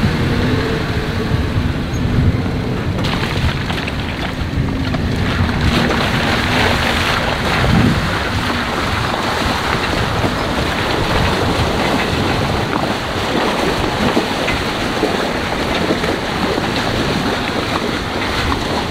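Wind buffeting the microphone over an off-road vehicle driving, its engine running with a faint steady note under the rush of wind and road noise.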